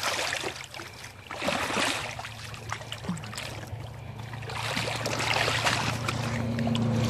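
Water splashing and trickling at the water's edge as a hooked sturgeon is handled on the bank, with small knocks. A low steady hum grows louder in the second half.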